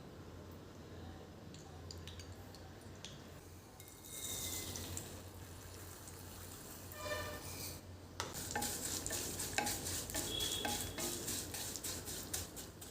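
Kitchen utensils clinking and scraping against pots and pans, as in stirring. A brief noisy stretch comes about four seconds in, and a dense run of quick metallic clicks follows in the second half.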